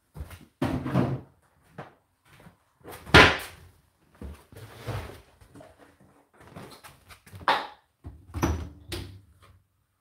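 Irregular knocks and thuds of household things being handled, like cupboard doors and objects being moved about, the loudest knock about three seconds in.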